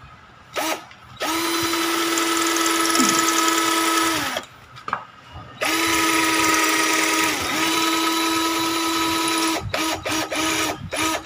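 Black & Decker GC1800 18 V cordless drill/driver running steadily with its bit pressed into hard concrete. It runs in two long runs of about three and four seconds, with short trigger blips before, between and after them. The drill makes no headway: the wall is too hard for an 18 V drill without a hammer function.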